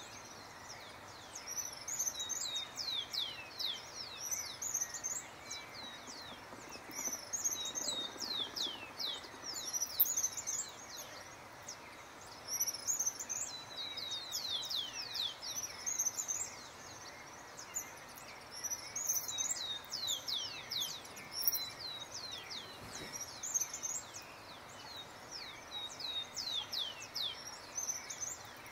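Wild songbirds singing in a field recording of natural ambience: bursts of quick, high, downward-slurred chirps come every few seconds over a steady background hiss.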